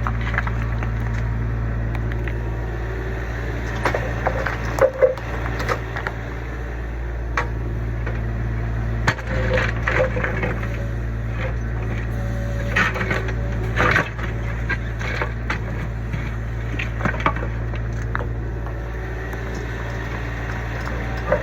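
Kubota U25 mini excavator's diesel engine running steadily, with irregular cracks, knocks and scraping as the bucket digs out and breaks up an old barn footing.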